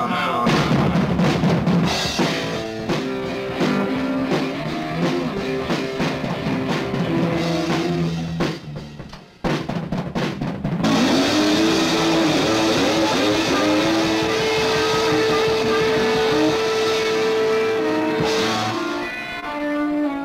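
Rock band playing with drum kit and guitar. About nine seconds in the music drops away and breaks off, then starts again with long held notes.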